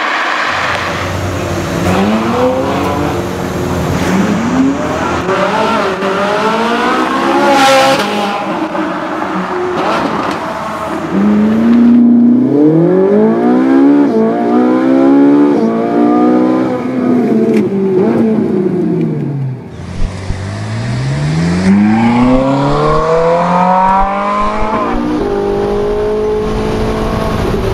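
Ferrari 458 Italia's 4.5-litre V8 accelerating hard through the gears, its revs climbing and dropping back at each upshift, in a few clips cut together. Heard first from the roadside, then inside the cabin, with a long climb that falls away before the next clip.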